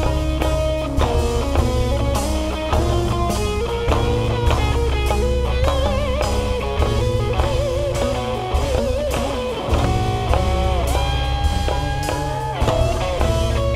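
Live band music: plucked strings over a steady bass and an even drum beat, with a wavering melody line on top.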